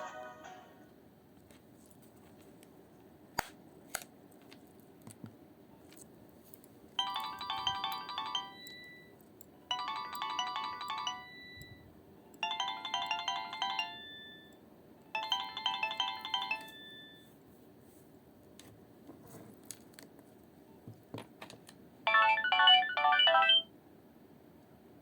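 Nokia 2660 ringtones played in turn through the phone's small speaker: four short electronic melodies of about two seconds each, with pauses between them, then a louder one near the end. Faint single clicks sound in the gaps.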